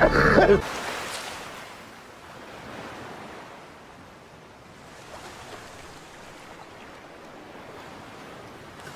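Music with a voice cuts off abruptly less than a second in, leaving a steady, even hiss of noise.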